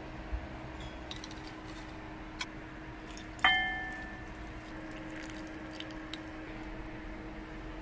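Kitchen handling around a cast-iron pot: a small thump as the pot is set down, then a sharp ringing clink about three and a half seconds in. After that comes a faint sound of brown sauce being poured over sliced leeks in the pot.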